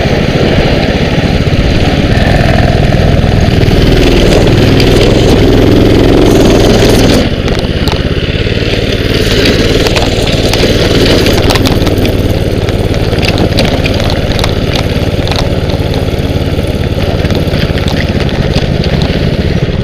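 Mini bike's small engine running under way. About seven seconds in, the engine note drops a step and then carries on steadily, with many short ticks and knocks over it.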